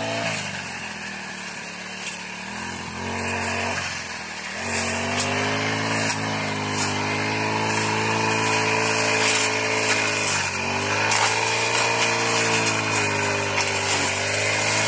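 Petrol brush cutter's small engine running hard while mowing grass. It runs lower for the first few seconds, picks up and gets louder about four and a half seconds in, and its pitch dips briefly a couple of times.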